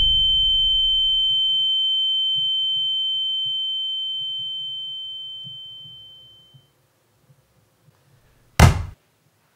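A high, steady electronic tone fading away over about six seconds, then one short, loud thud near the end.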